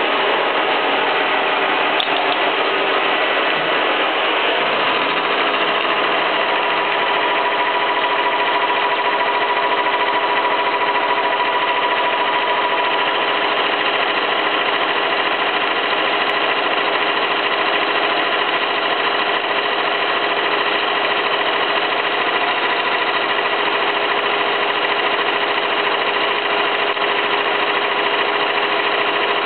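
Stanko 6T12 vertical milling machine milling a pocket in a steel block: the cutter runs steadily through the steel, giving a constant grinding noise with a steady whine from the spindle drive.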